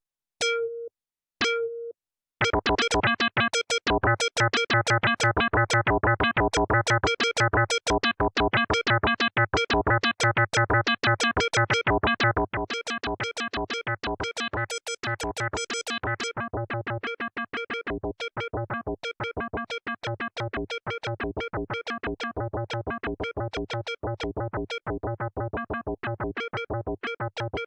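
Siberia 2 FM software synthesizer playing through its arpeggiator in random mode: a few separate notes, then from about two seconds in a fast, steady stream of short notes jumping at random in pitch. The stream gets quieter about halfway through.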